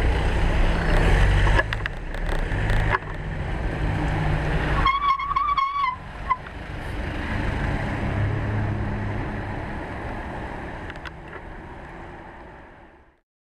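Motorcycle engine running with wind and road noise while riding slowly in traffic. About five seconds in, a horn sounds for about a second, then gives one short toot. The sound fades out just before the end.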